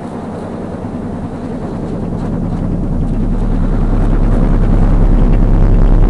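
A low, rumbling drone with a throbbing texture that swells steadily louder.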